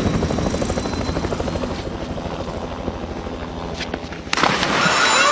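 Helicopter rotor chopping in a fast steady beat, slowly fading. About four seconds in, a sudden loud splash of a body falling into a swimming pool.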